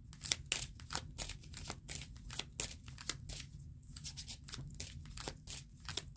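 A deck of divination cards being shuffled by hand: a quick, irregular run of soft clicks as the card edges slap and slide against each other.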